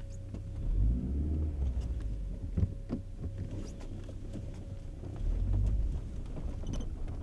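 Car engine and road rumble heard from inside the cabin, swelling twice, with scattered short knocks and rattles.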